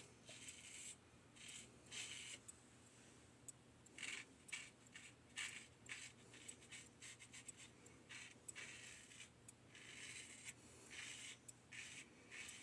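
Single-edge safety razor (1895 Star Lather Catcher with a Gem blade) scraping through lathered stubble in a run of short strokes, some in quick succession. A faint rasp.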